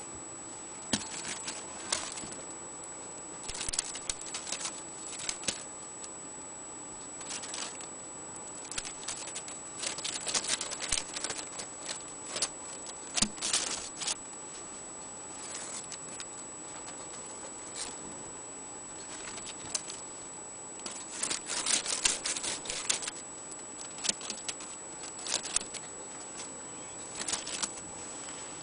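Abyssinian kitten scrabbling and pouncing on a quilted blanket: irregular bursts of scratchy rustling and patter from its paws and claws on the fabric, against a steady faint hiss.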